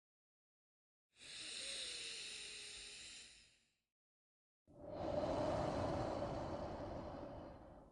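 Slow, deliberate paced breathing for a relaxation exercise. About a second in comes an airy, hissing breath lasting about two and a half seconds. After a second of silence, a fuller breath follows that lasts about three seconds.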